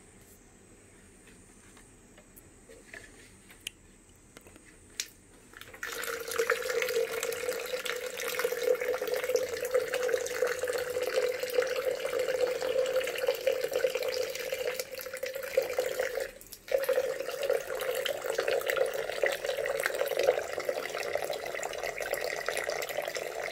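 Water from a pump-fed hose gushing into a glass jar, starting abruptly about six seconds in. It pours steadily with a hollow ringing note, cuts out for a moment about two-thirds of the way through, then resumes a little higher in pitch. The abrupt start is the auto-switch turning the water motor on.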